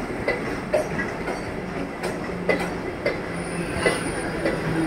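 Mumbai suburban electric local train rolling slowly past: its wheels clack unevenly over the rail joints above a steady rumble and low hum. A brief high squeal comes near the end.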